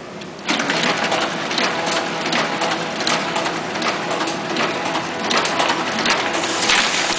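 Toko 4750 small offset printing press starting up about half a second in and running, with a regular clatter of about two to three strokes a second. A louder, higher hiss joins in near the end.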